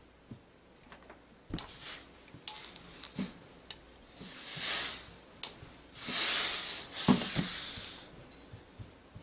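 Gravity-feed steam iron hissing out two bursts of steam, the second longer, while pressing knit fabric, with sharp knocks of the iron being set down and moved on the pressing surface.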